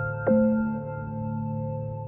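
Calm new-age background music: soft sustained keyboard notes over a low drone, with a new note coming in about a quarter second in.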